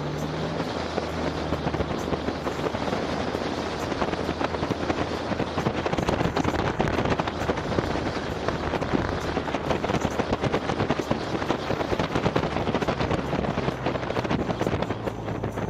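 Wind buffeting the microphone with a dense crackle, over the low steady hum of a Polaris Slingshot's engine as it drives along.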